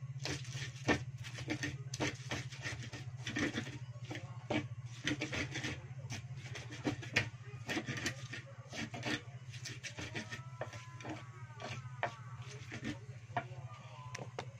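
Pestle grinding shallots, garlic and chilies into a spice paste in a small Indonesian cobek mortar: irregular scraping and knocking strokes, done slowly so the small mortar doesn't splatter. A steady low hum runs underneath.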